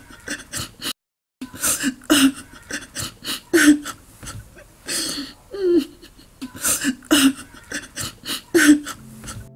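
A woman sobbing: sharp breathy gasps and short wailing cries that fall in pitch, coming again and again.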